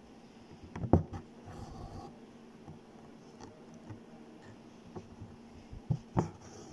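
Hand embroidery: a needle passing through taut fabric and embroidery floss drawn through it, making soft taps and rustles, with a sharp click about a second in and two more near the end.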